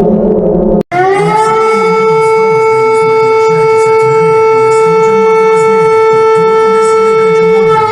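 A low droning sound cuts off abruptly about a second in, and an emergency warning siren starts: it swoops up quickly to a single loud, steady tone and holds it unchanged.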